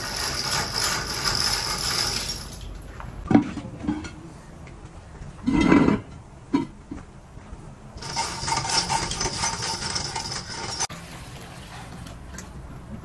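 Metal parts clanking and knocking a few times, the loudest a short clatter a little after halfway, between stretches of steady machine noise at the start and again later on.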